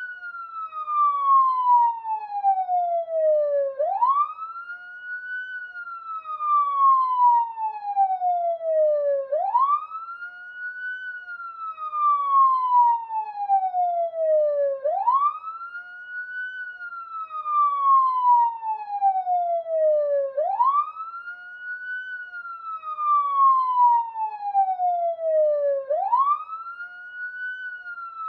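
Police siren on a slow wail: each cycle climbs quickly, then falls slowly back down, repeating about every five and a half seconds, five times over.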